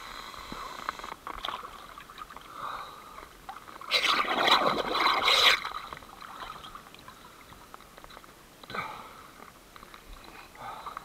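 Water splashing and sloshing around a camera at the water's surface, with one loud splash about four seconds in lasting over a second, and a shorter splash near the end.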